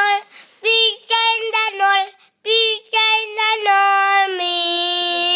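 A young child singing alone, short sung phrases ending in a long held final note that starts about four seconds in.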